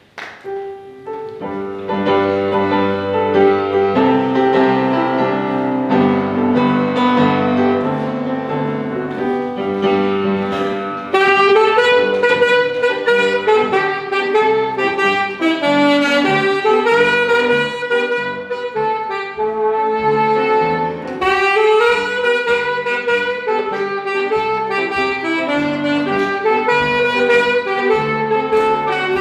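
Instrumental music: sustained piano or keyboard chords, joined about 11 seconds in by a louder saxophone melody.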